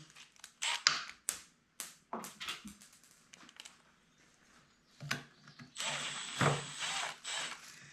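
Small plastic and metal parts clicking and knocking as they are handled, then about two seconds of steady grinding and scraping as a T30 Torx screw is driven into the handlebar base.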